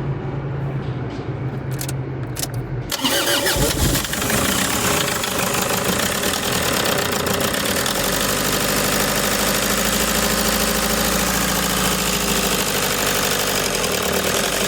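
Toyota Hiace 2.5 D-4D four-cylinder diesel engine running at idle, then about three seconds in it starts up again and runs on, louder and steady. It is the rough-running engine whose vibration is being traced to an injector that is not firing.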